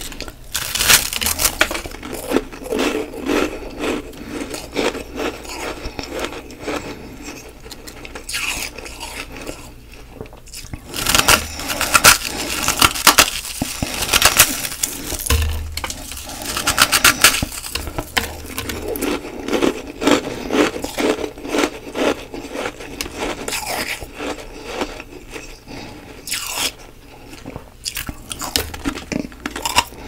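Close-up crunching and chewing of fluffy humidifier frost: repeated bites into soft, flaky ice chunks, each followed by crackly chewing, in bursts that come and go, loudest around the middle.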